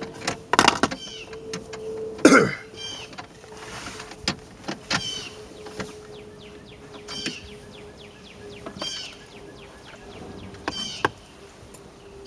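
Scattered light clicks and knocks of a screwdriver, screws and plastic trim being handled while the dashboard around the radio is reassembled, with one louder knock about two seconds in.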